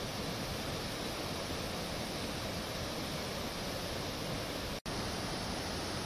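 Steady rush of the Vaigai river in flood, swollen by heavy rain and pouring over a low weir, with a momentary dropout about five seconds in.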